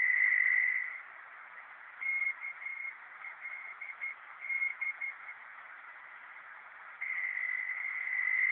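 Shortwave receiver playing a Morse code station identification: the letters K-L-B keyed as short and long beeps on one high steady tone, over a bed of receiver hiss. An unbroken tone is held for about a second at the start and again from about seven seconds in.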